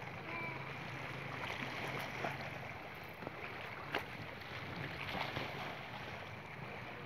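Seashore ambience: a steady wash of small waves and wind on the microphone, with faint distant voices and one sharp click about four seconds in.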